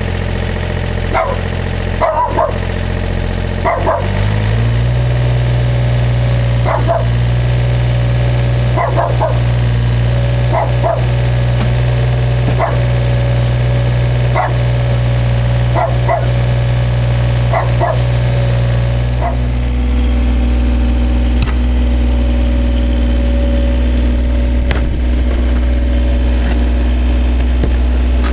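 Komatsu PC27 mini excavator's diesel engine running as it digs, revving up about four seconds in and changing note again about two-thirds through. A dog barks in short calls, about a dozen times, through the first two-thirds.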